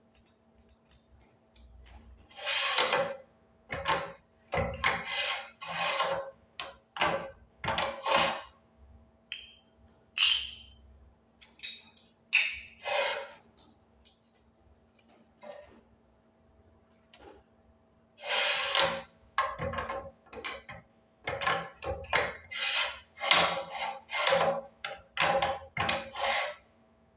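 Hand-operated pin badge and keychain press being worked: irregular runs of short clunks, clicks and scrapes from the press and its metal parts, with a faint steady hum underneath.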